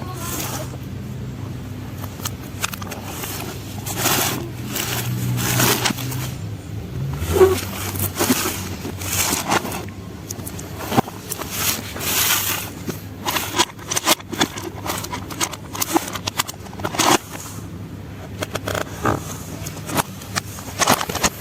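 Toy construction trucks being handled and pushed about, making repeated short scrapes and clatters. A low steady hum runs underneath for the first several seconds, then stops.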